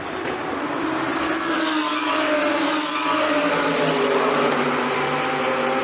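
GT3 race car engines running hard past the pits, their pitch sliding slowly down and then back up, over a steady wash of circuit noise.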